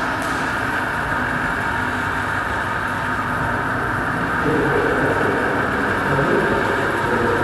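Steady rumbling, hissing drone from a sound-art installation, with faint pitched tones joining in about halfway through.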